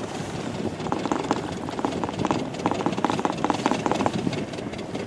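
Small rubber dinghy under way: its motor running under a steady wash of noise, with water slapping against the hull in quick, irregular knocks.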